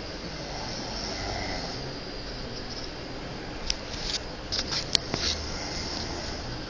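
A sleeping person breathing noisily between snores, with a soft rasping breath about a second in. A quick run of sharp clicks comes about four to five seconds in.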